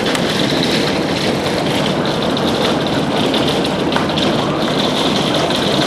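Heavy rain mixed with hail in a strong wind: a steady, dense rush with many small, sharp ticks of drops and hailstones striking.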